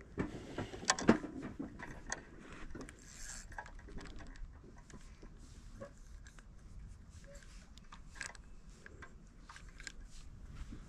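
Small clicks, rattles and rustles of fishing bait and tackle being handled, with a few sharper knocks in the first second or so and fainter scattered clicks after.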